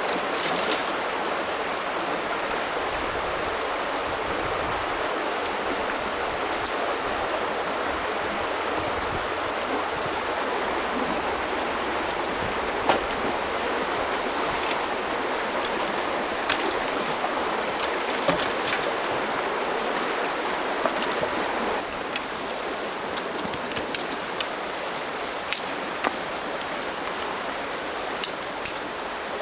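River water rushing steadily over its bed, with a few sharp clicks and knocks scattered through it, more of them near the end.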